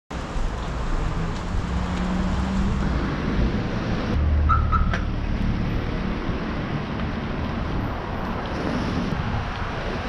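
Street noise: a steady low rumble of traffic with wind on the microphone, and two short high beeps about four and a half seconds in.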